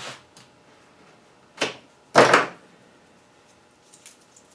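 Hand tools and ground wire handled on a wooden workbench: a short noise about one and a half seconds in, a louder clatter just after two seconds, then a few faint light clicks near the end.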